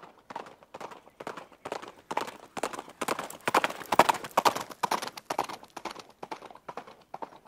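Carriage horse's hooves clip-clopping in a steady rhythm, growing louder toward the middle and then fading away.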